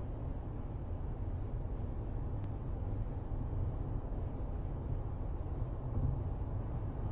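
Steady low rumble of a car driving in traffic, engine and road noise, heard from inside the cabin.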